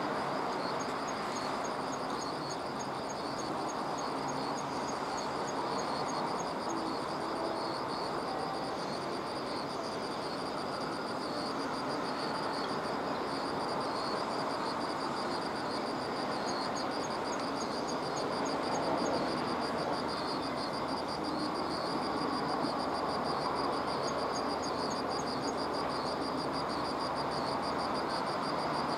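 Outdoor ambience of insects trilling: a steady high shrill note with runs of quick repeated chirps that come and go, over a constant rushing background noise.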